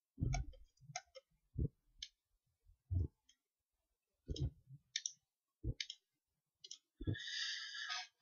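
Computer mouse clicking: single clicks, spaced irregularly about a second apart, with a soft hiss for the last second.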